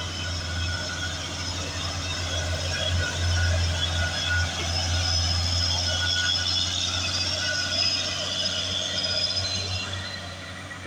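Diesel engine of a Mitsubishi Fuso refrigerated box truck pulling up a steep hill as it passes close by. The engine makes a deep steady drone with a high whine over it, and the sound fades near the end.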